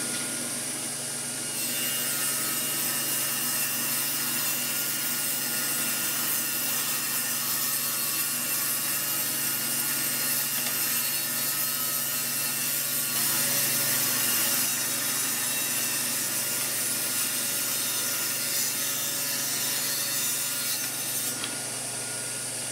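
Table saw running steadily as it rips oak boards to width, the blade's cutting hiss laid over the motor's hum. The cutting noise drops away about a second before the end, leaving the saw running free.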